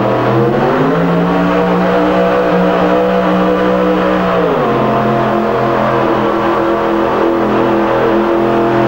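Diamond T pulling truck's V-engine running at full throttle under load while dragging the weight-transfer sled. The pitch climbs and holds high, then drops sharply about four and a half seconds in as the driver shifts up, and runs on steady at the lower pitch.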